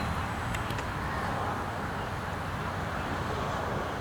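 Wind rumbling on the microphone, with a faint thin whine from the RC foam plane's small brushless electric outrunner motor flying at a distance.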